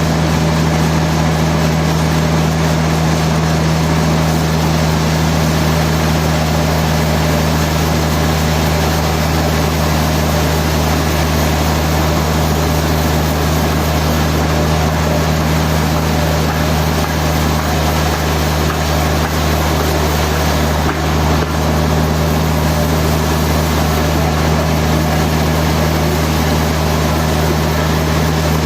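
Heavy machinery running steadily: a loud, constant low drone with a hum underneath and a wash of mechanical noise.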